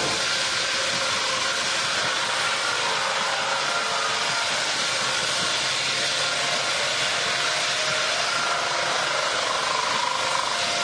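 Sawmill machinery running steadily: a continuous hiss with a few faint, steady whining tones and no strikes or changes.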